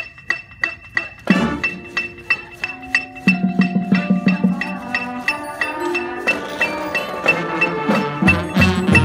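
Marching band wind section (sousaphones, saxophones and other brass) starts playing about a second in. The band plays over a steady metronome beat of about three high clicks a second.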